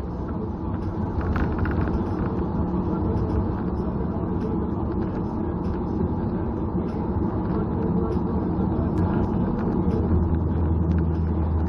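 Steady road and engine noise inside a moving car's cabin, heard while driving along a highway. The low drone grows deeper and louder about ten seconds in.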